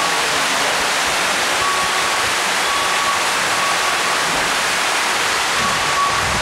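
Floodwater pouring down a hotel stairwell's steps in a steady, loud rush. A faint high beep recurs every second or so.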